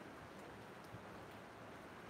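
Faint steady hiss of rain falling, with a couple of light drop ticks.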